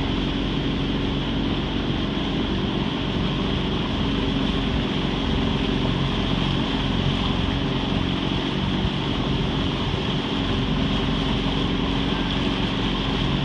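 Small boat's motor running at a steady speed, with a constant rushing hiss of water and wind over it.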